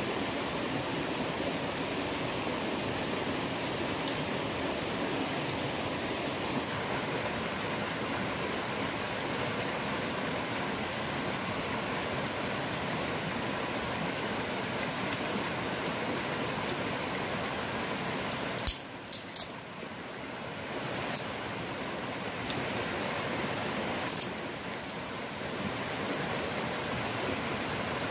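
A stream's water rushing steadily over rocks. A few short sharp clicks or snaps stand out about two-thirds of the way through.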